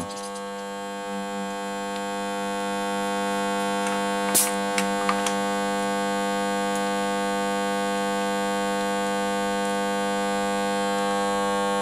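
A steady humming drone that does not change in pitch or level, with a few short light clicks about four to five seconds in.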